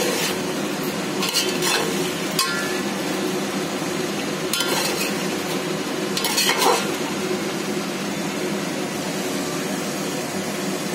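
Raw chicken pieces sizzling in oil in a steel pot while a metal spatula stirs them, with several short scrapes and clinks of the spatula against the pot. The chicken is being lightly sautéed with fried onion and ginger-garlic paste.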